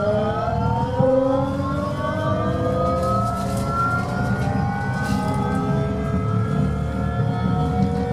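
Howl of an AEG GT8N tram's GTO-inverter traction drive as the tram accelerates away from a stop. It is a chord of whining tones that rise steadily in pitch, over the low rumble of the running gear. This car's drive electronics are unusually loud, and its howl on starting off is especially strong.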